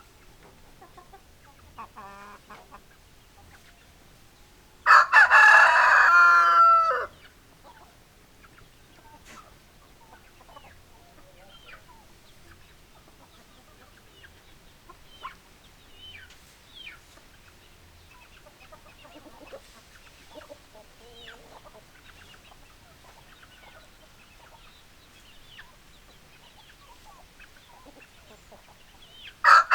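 A rooster crows once loudly, a call of about two seconds, some five seconds in, and a second crow begins right at the end. In between, chickens cluck and make short soft calls here and there.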